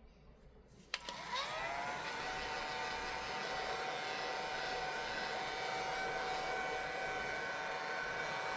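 Electric heat gun switched on with a click about a second in; its fan whine rises as the motor spins up, then it runs steadily with a blowing hiss, heating the tablet screen to soften its adhesive.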